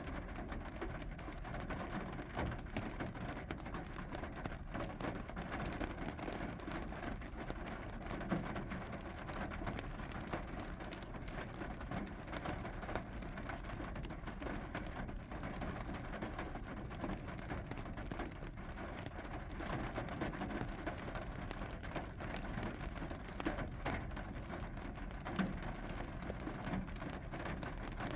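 Rain falling steadily, a dense patter of small drop ticks with a couple of louder drop hits.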